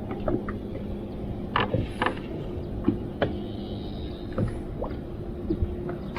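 Sounds aboard a fishing boat: a steady low hum with light knocks and taps scattered through it.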